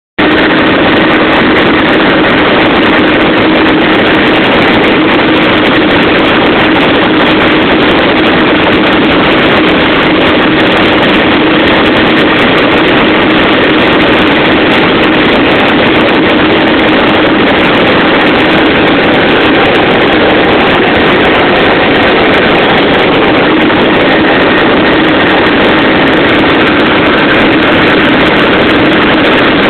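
Helicopter in flight, heard from on board: loud, steady engine and rotor noise with an unchanging drone running through it.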